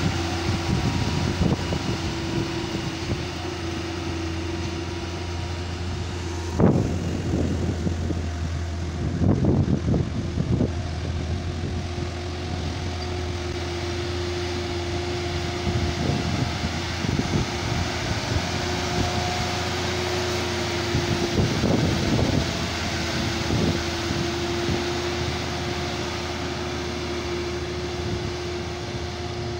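Steady drone of a moving truck engine with road noise, holding an even hum, broken by a few short knocks and rattles.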